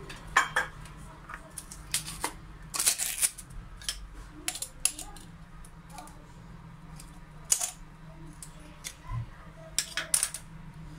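Scattered sharp clicks and light clatters of kitchen items being handled around a plastic mixing bowl, irregular and a dozen or so in all, with a quick cluster about three seconds in, over a faint steady low hum.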